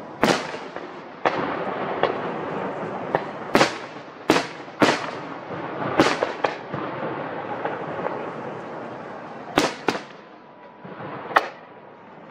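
Aerial fireworks shells bursting: a string of about a dozen sharp bangs over a continuous rumble. They come thick for the first seven seconds, then space out, with a last bang near the end.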